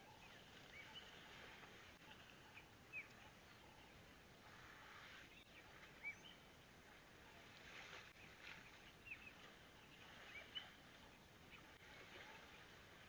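Faint outdoor ambience with small birds giving short, high chirps scattered every second or so.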